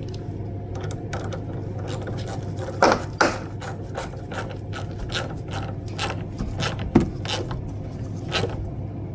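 Socket ratchet clicking in short irregular runs as a car battery terminal clamp is tightened, with a few louder knocks about three seconds in and again around seven seconds.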